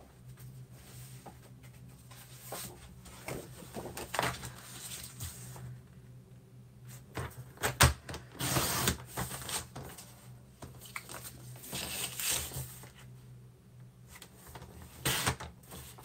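Sliding-blade paper trimmer cutting cardstock: a few short scraping strokes as the blade carriage runs along the rail, with knocks and shuffling as the card is positioned and moved, the loudest knock a little before the middle.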